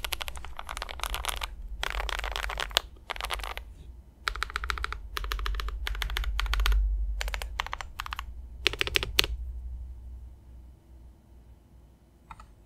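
Typing on a GMMK Pro aluminium mechanical keyboard with Boba linear switches and GMK 8008 doubleshot ABS keycaps. Bursts of rapid keystrokes come with short pauses and stop about nine seconds in.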